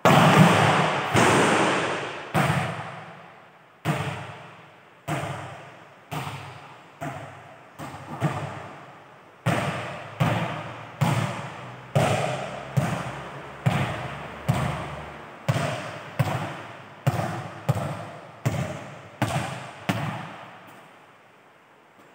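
A volleyball struck hard in a spike, followed by about twenty more sharp ball impacts at irregular intervals, each ringing out with a long echo in a large hall. The impacts are loudest in the first few seconds.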